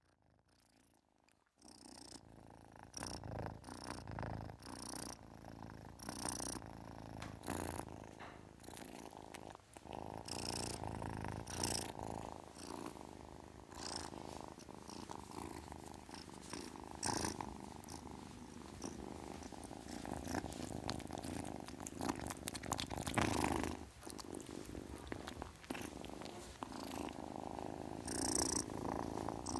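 Kitten purring close to the microphone, a continuous low rumble that starts about a second and a half in, with scattered brief higher-pitched noises over it.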